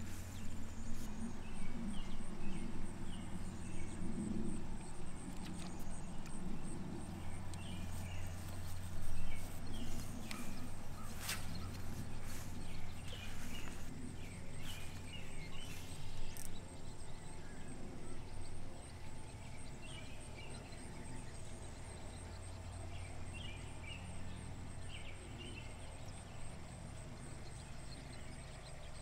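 Outdoor ambience with a steady low rumble and faint, short high chirps scattered throughout, and a single sharp click about eleven seconds in.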